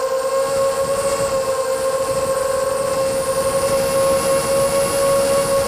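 Brushless motors and propellers of an Armattan Morphite V2 FPV quadcopter (3100 kV DYS motors, 4040 props) whining at a nearly steady pitch in flight, heard through its onboard camera.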